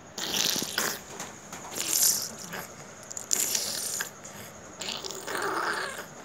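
A baby being spoon-fed formula milk from a steel spoon: about four short wet slurping and scraping noises at the lips, a second or more apart.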